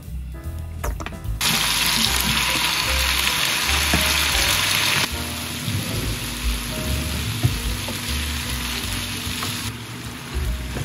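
Spicy marinated chicken, cabbage and potatoes sizzling on a hot oiled griddle pan: a loud hiss starts about a second and a half in and settles lower about halfway through.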